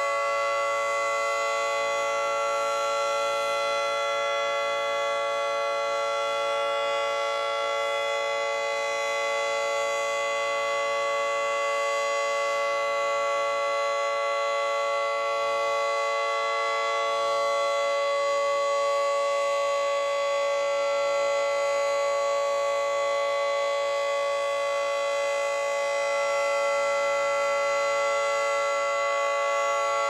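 Federal Signal 2T22 dual-tone outdoor warning siren sounding a steady chord held at constant pitch and level, as a routine test signal.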